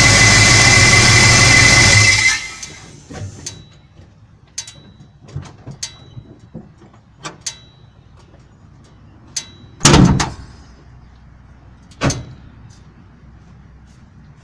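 A Ford F-150 SVT Lightning pickup runs with a loud, steady noise carrying a thin high tone, which cuts off about two seconds in. Scattered light clicks and knocks follow, with two heavier thumps near the end, like a vehicle door being worked.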